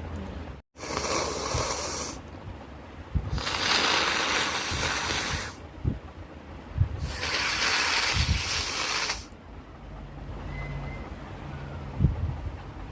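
Three long, forceful nose blows into a handkerchief through a congested, cold-blocked nose, each lasting about two seconds.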